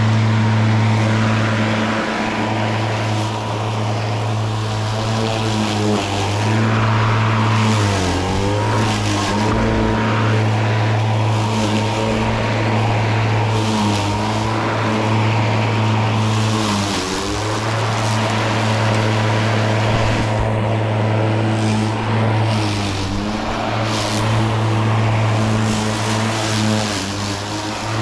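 Makita cordless battery lawnmower running as it cuts long, thick grass: a steady motor and blade hum with a hiss of cut grass. The pitch sags briefly and recovers several times as the blade meets denser grass.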